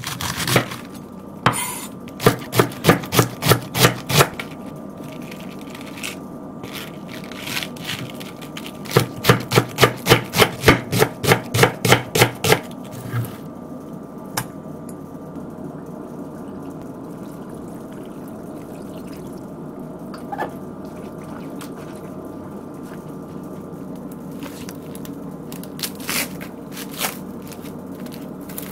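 Kitchen knife shredding cabbage on a bamboo cutting board: two runs of quick, even chops, about four a second, in the first half. After that only a steady low hum with a few single knocks.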